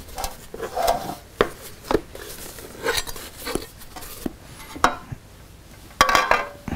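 Kitchen utensils and a baking dish knocking and clattering on a countertop and cutting board: a string of separate light knocks, then a louder clatter about six seconds in as the dish is moved.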